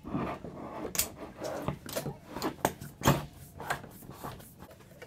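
A handful of short knocks and clicks from handling a steering cable and a metal-tube center console frame on an inflatable boat floor, the loudest about three seconds in.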